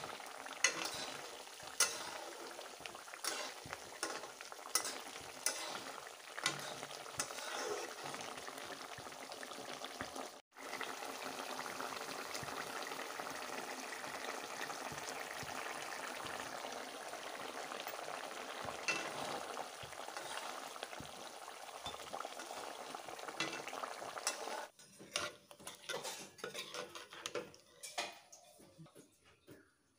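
Curry sizzling and bubbling in a metal wok. A spoon stirs and clinks against the pan through the first ten seconds, followed by a steady sizzle. It drops off about 25 seconds in to quieter, scattered spoon clinks as the curry is scooped.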